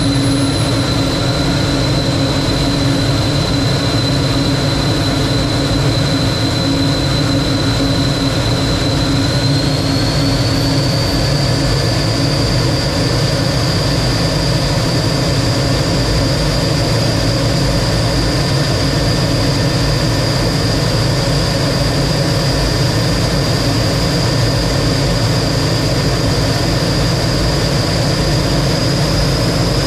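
Lockheed T-33 jet's turbojet engine running steadily: a loud rush with a high whine. About ten seconds in, the whine rises slightly in pitch as the engine speeds up a little.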